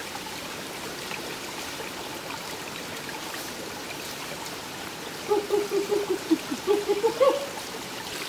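Steady rushing of a stream. About five seconds in, a person's voice cuts in with a quick string of short sung or chanted syllables that rise at the end; this is the loudest sound.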